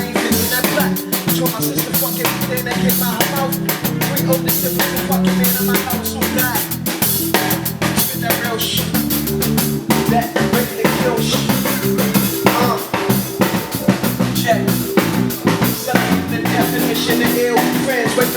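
Live band playing a hip-hop groove without vocals: a drum kit beat of kick, snare and rimshot hits over bass and chords.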